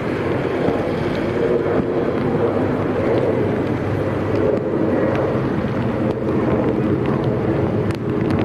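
A motor running steadily, a low drone with no change in pitch.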